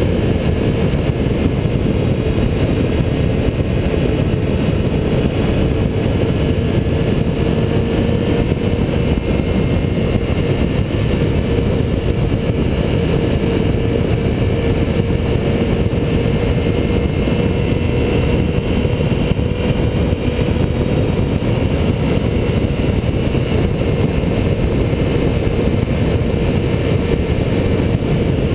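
Motorcycle cruising at steady highway speed: wind rushing over the microphone with a steady engine drone held underneath, no gear changes or revving.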